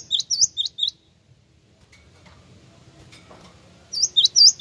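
Cinereous tit (gelatik wingko) singing: a quick run of about five sharp, high, upward-sweeping whistled notes at the start, then a second run near the end.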